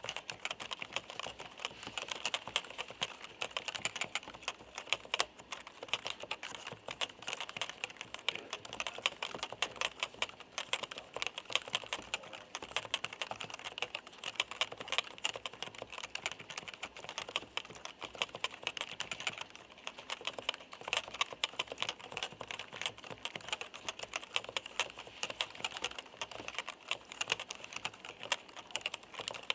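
Topre FD-0100 capacitive keyboard typed on quickly and steadily: a dense run of light, clacking keystrokes.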